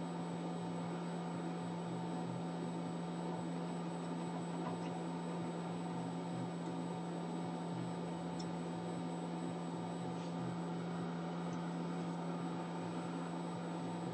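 Hot-air rework station blowing, a steady rush of air with a constant motor hum, while old underfill is heated off the WLAN chip pads. A few faint ticks come through, about four in all.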